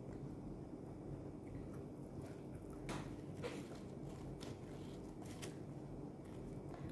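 A person chewing food with the mouth closed, faint, with a few short crackly rustles about three to five and a half seconds in as Arabic flatbread is handled and torn.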